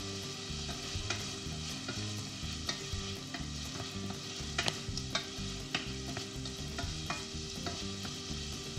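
Food sizzling in a steel pan while a wooden spoon stirs it, with scattered light knocks of the spoon against the pan.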